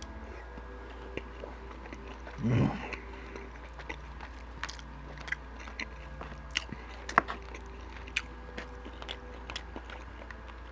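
Close-miked chewing of a mouthful of beef chunks and sticky rice, with many small wet mouth clicks and smacks. There is a short louder mouth sound about two and a half seconds in.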